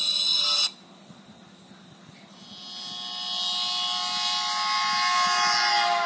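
Nokia N73 playing ringtones through its small built-in speaker: one tone cuts off sharply less than a second in, and after a short pause another sustained tone swells in over a few seconds, its pitch dropping slightly near the end.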